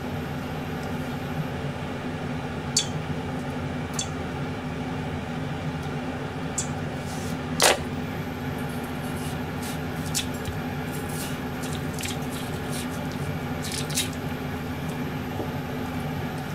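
Watermelon being broken up by hand and cut into cubes with a kitchen knife on a plastic cutting board: scattered knocks and clicks of the knife on the board and squishes of wet flesh, the loudest knock about halfway through, over a steady low hum.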